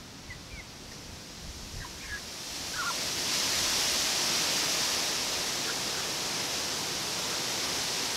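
Backyard hens giving a few faint, short clucks. About three seconds in, a steady hiss of unknown source swells up, becomes the loudest sound and holds.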